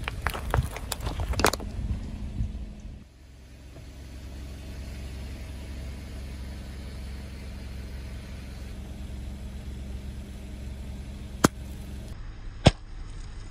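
Car tyre rolling onto and crushing rubber balls, with a burst of crackling and popping for the first few seconds. Then a car engine running steadily at low speed as the tyre presses down on a squishy toy filled with water beads. Near the end come two sharp snaps about a second apart as the toy bursts.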